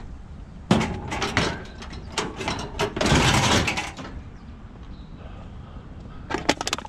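Scrap items, cans among them, being handled and shifted: a run of knocks and rattles, then a scraping rustle lasting about a second, and a fresh burst of quick rattling clicks near the end.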